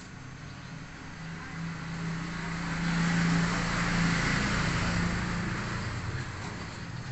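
A motor vehicle passing by: a steady engine hum with road noise that swells to a peak about three to four seconds in, then fades away.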